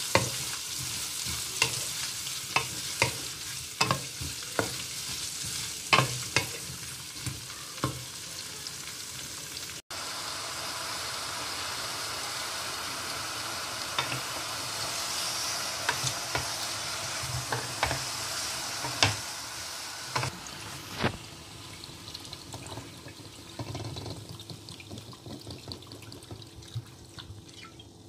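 Ginger slices frying in hot oil in a metal wok, a steady sizzle, with a wooden spatula stirring and knocking sharply against the pan many times. After a break about ten seconds in, the sizzling goes on as raw pork pieces are stirred in, with fewer knocks, and dies down in the last several seconds.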